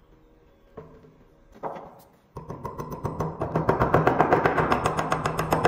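A click and a single knock, then from a bit past halfway a fast, steady run of light hammer taps on steel pins set through brass bolsters on a knife tang, peening the pin ends over.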